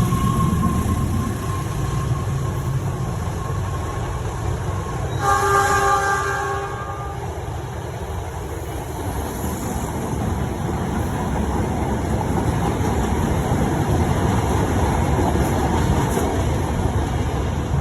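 Indonesian railways (KAI) train horn sounding a blast of several notes at once, about five seconds in and lasting roughly a second and a half. The steady rumble of the running train follows.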